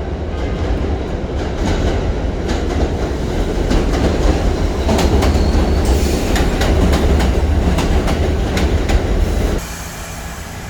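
Cordless battery vacuum with a floor roller brush running while vacuuming, a steady motor and brush noise with small crackles and clicks from debris being picked up. It drops to a quieter level near the end.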